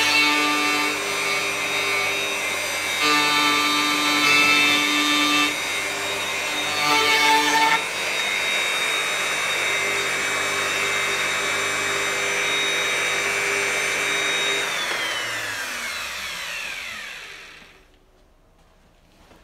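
Electric router running at full speed, its sound shifting in short spells during the first eight seconds, then steady. About fifteen seconds in it is switched off and its whine falls in pitch as it spins down to a stop by about eighteen seconds.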